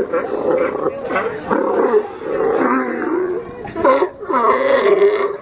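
A crowd of California sea lions hauled out together, barking and growling over one another in a continuous run of overlapping, rising and falling calls.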